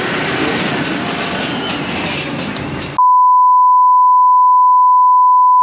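Engine noise from a smoking Superstock pulling tractor for about three seconds, then a loud, steady one-pitch bleep tone is edited in and abruptly replaces all other sound.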